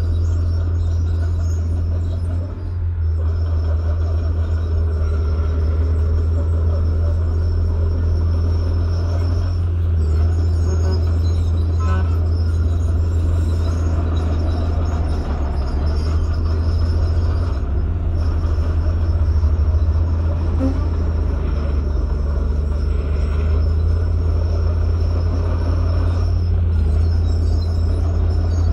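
Diesel engine of a Komatsu crawler bulldozer running steadily while the dozer pushes gravel and soil, a continuous low drone.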